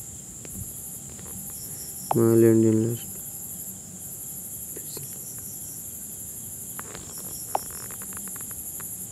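Crickets chirping in a continuous high trill that breaks off briefly twice. About two seconds in, a man's voice gives one drawn-out hum lasting under a second.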